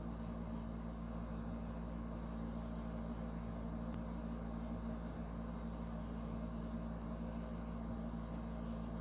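A steady low machine hum with hiss, holding level without change, and a faint tick about four seconds in.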